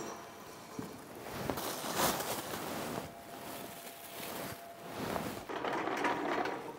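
Rustling and handling noise from a thin plastic disposable shower cap being pulled on, with a sharp knock about two seconds in.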